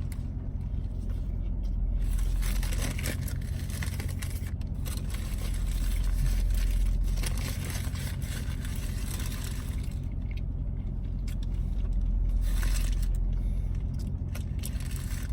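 Car idling, heard from inside the cabin as a steady low hum, with paper rustling and scraping as a sandwich bag and wrapper are opened.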